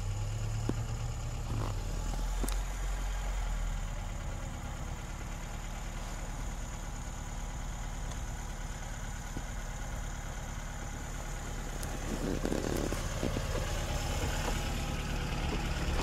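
Lada Niva's engine idling steadily while its winch, switched to low gear, slowly hauls the driverless car forward on the cable.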